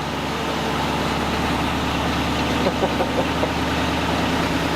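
Race car's engine idling steadily, running to charge its battery. A few light clicks sound about halfway through.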